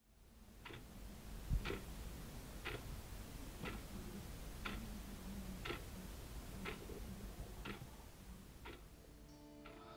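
Clock ticking steadily, one tick a second, over a low background hum, with one low thump about a second and a half in. Guitar music starts to come in near the end.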